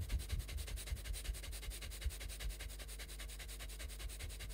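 Rapid, evenly paced panting breaths of panting kapalabhati, a forceful yogic breathing exercise, with the puffs of air bumping the microphone. The panting stops abruptly near the end.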